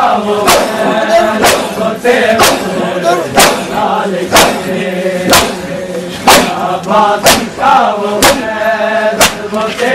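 Crowd of mourners performing matam, slapping their chests in unison about once a second, under a group of men chanting a noha.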